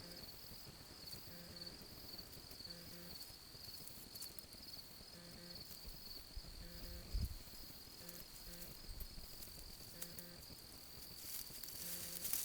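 Insects trilling steadily in a high, pulsing chorus. A faint low tone repeats about once a second underneath, and there is a brief low thump about two-thirds of the way through.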